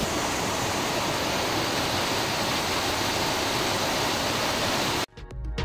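Steady rush of water from the stream that drives a water-powered flour mill, cascading in small falls down its hillside channel. It cuts off suddenly near the end, and electronic music with a beat starts.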